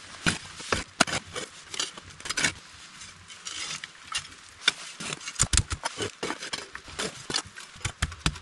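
Small folding shovel digging in a fire pit, its metal blade scraping and chopping into wet ash and dirt in a run of irregular scrapes and knocks, thickest about five to six seconds in.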